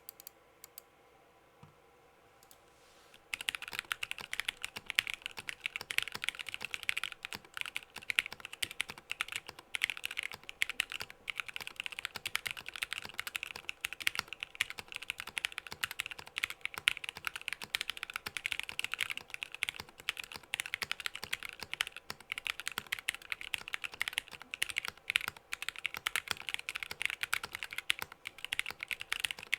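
Fast, continuous typing on a mechanical keyboard with lubed Novelkeys Cream linear switches in an acrylic sandwich-mount plate, starting about three seconds in after a few faint clicks.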